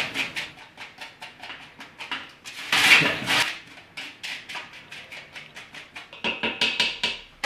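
A silicone spatula scraping drippings and bits off a foil-lined baking sheet in quick repeated strokes, with a louder scrape about three seconds in.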